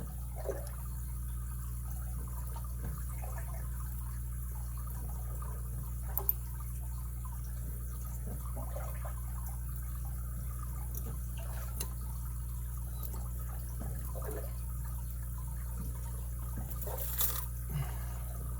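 Lock picks working in the keyway of an all-brass 60 mm padlock: faint small clicks and scrapes of pick and tension wrench, over a steady low hum. There are two sharper clicks, about six seconds in and near the end.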